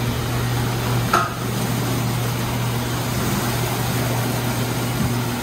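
Ryko R-784 rollover car wash running its spinning side brushes against a car, a steady wash of brush scrubbing and water spray over a constant low machine hum.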